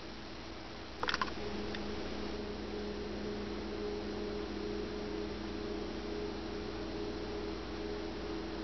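A short clatter of clicks about a second in, followed by a steady low hum made of several held tones over a hiss of room noise.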